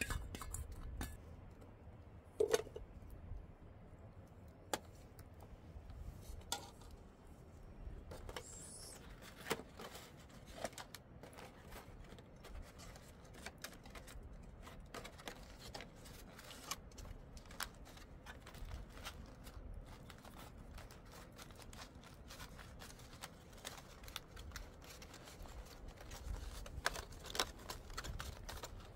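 Scattered small clicks and knocks of objects being handled, with one louder knock about two and a half seconds in and the clicks growing more frequent near the end.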